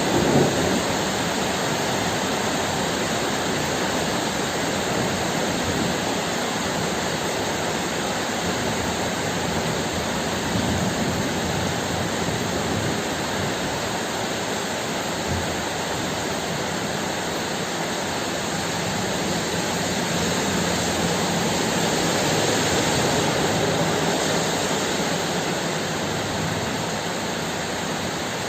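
Heavy rain falling steadily, a dense even hiss, with a brief louder swell just after the start.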